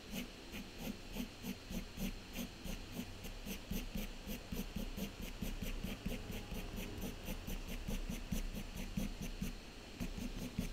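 Graphite pencil scratching on toned drawing paper in quick back-and-forth shading strokes, about three to four a second, with a short pause near the end.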